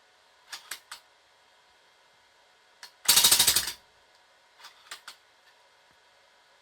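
Homemade gas-blowback airsoft gun firing one short full-auto burst of about ten rapid shots, just over half a second long, about three seconds in. A few light mechanical clicks come before and after the burst.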